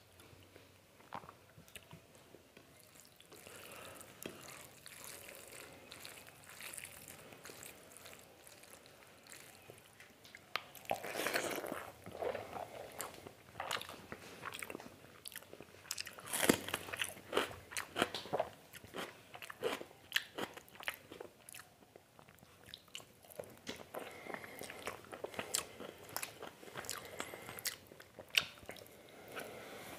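Close-miked eating by hand: rice mixed with mutton curry gravy, then mouthfuls of rice and mutton chewed with many sharp wet mouth clicks. The loudest mouthfuls come about eleven and sixteen seconds in.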